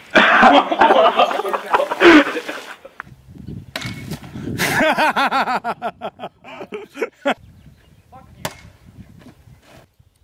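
Young people shouting and laughing, with a loud sharp knock about two seconds in and a fainter one later. The laughter comes in bouncing bursts from about three to seven seconds in.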